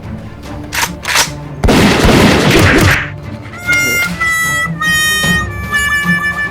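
Edited soundtrack: two short hits, then a loud crash-like burst of noise lasting about a second, followed by music with a held, stepping melody line.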